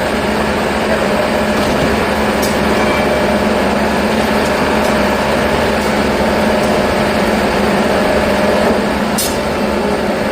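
Machinery running with a steady, loud mechanical drone and a low hum, with a couple of brief high ticks.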